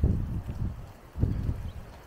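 Footsteps of a person walking on a path: a few separate low thuds, one at the start and another just past the middle.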